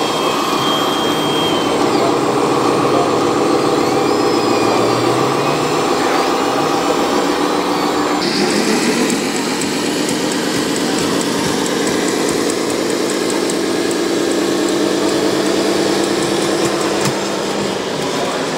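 Radio-controlled model trucks and construction machines running: small motors and engine-sound units humming steadily. The sound changes abruptly about eight seconds in.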